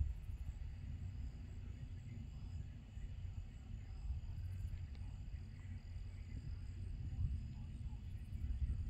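Wind buffeting the microphone as an uneven low rumble, with a faint steady high trill of insects behind it.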